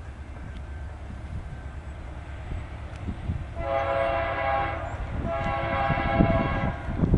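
Approaching BNSF diesel locomotive sounding its air horn in two long blasts, the first starting about three and a half seconds in and the second following after a short gap, over a steady low rumble.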